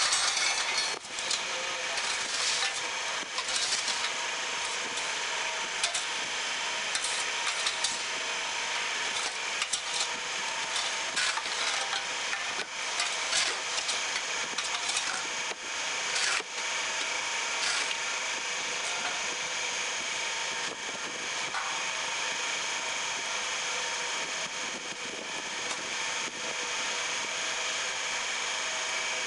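HJM 6 MPP hydraulic paving-block press running: a steady mechanical hum from its electric motor and hydraulic pump, with several steady tones in it. Scattered clicks and knocks from the press and mould are heard over the hum.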